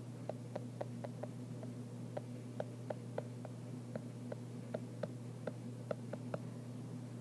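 Stylus tip tapping and ticking on an iPad's glass screen during handwriting: irregular light clicks, a few a second, over a steady low electrical hum.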